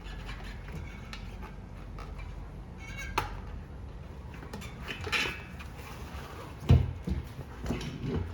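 Rubber bicycle inner tube being pulled out of a tire: rustling and rubbing handling noise with scattered small clicks, a sharper click about three seconds in, and a louder thump just before the end.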